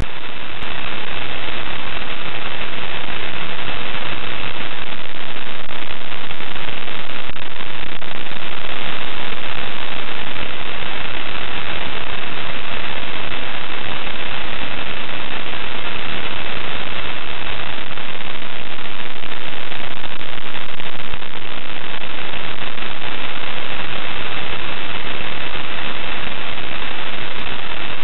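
Loud, steady static hiss with a thin, high, steady tone running through it.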